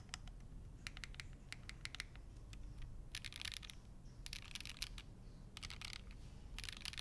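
Typing on a Leaf65 mechanical keyboard, top-mounted aluminium plate with no foam, on V2U switches lubed with 205 and filmed with TX films. A few separate keystrokes first, then from about three seconds in, four quick bursts of rapid keypresses.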